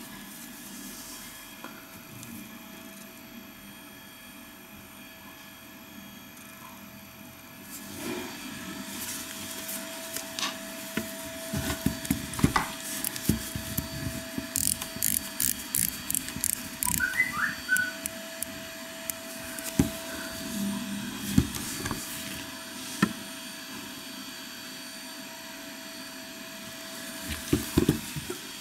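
Cotton-gloved hands handling a wristwatch: fabric rubbing and a run of small clicks and taps on the watch case and clasp. This starts about a third of the way in and goes over a faint steady hum.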